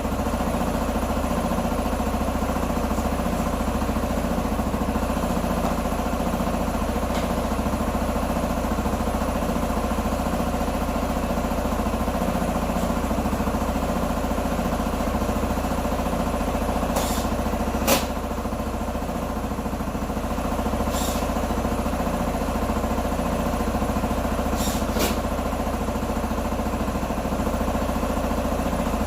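125 cc motorcycle engine idling steadily, with a few sharp clicks or taps about two-thirds of the way through and near the end.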